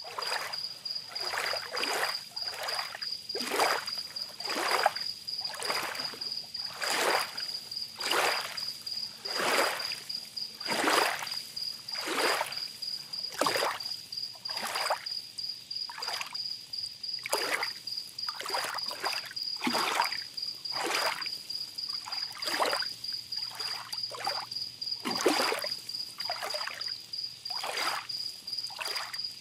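Small sea waves lapping and splashing at the shore, a wash every second or so, with a cricket giving a steady high trill behind them.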